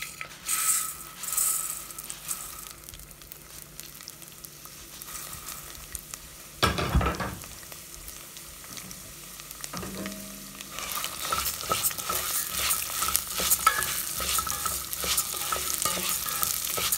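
Raw rice sizzling as it goes into hot ghee in a cooking pot, then frying while a spoon stirs and scrapes through the grains. There is a single loud knock about halfway through, and the stirring grows busier over the last few seconds.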